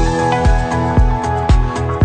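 Background music with a steady beat, about two drum beats a second under sustained held notes.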